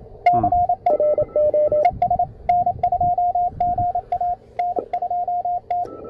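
Morse code (CW) signal received on a CFT1 CW transceiver and played through a portable speaker: a steady-pitched tone keyed on and off in dots and dashes, with sharp clicks at many of the tone starts. A second, slightly lower-pitched station keys underneath for about a second near the start.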